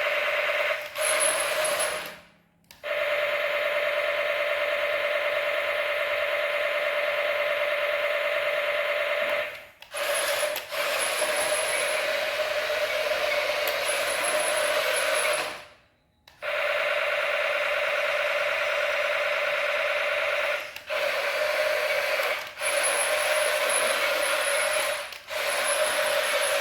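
Small electric motor driving a toy's plastic gearbox, whirring steadily with a geared, ratcheting hum. It stops fully about two seconds in and again about sixteen seconds in, and falters briefly a few other times.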